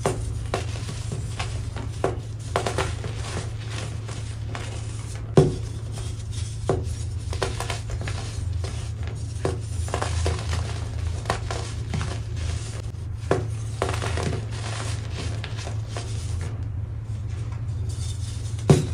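Pressed blocks of baking soda crumbling and crunching in bare hands: a continuous run of irregular dry crackles with a few sharper snaps, the loudest about five seconds in and another near the end, over a steady low hum.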